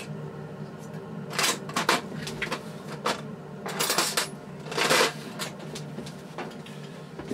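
Hands working the plastic case and mainboard of an opened Amstrad PC2286, trying to release the board from its clips. Scattered plastic clicks and knocks, with two longer scraping rustles near the middle.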